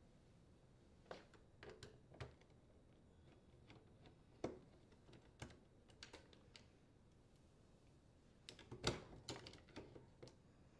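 Faint, scattered clicks and small knocks of a T25 Torx driver working the screws out of a dishwasher door latch and of the metal latch and screws being handled, with a quick cluster of clicks near the end.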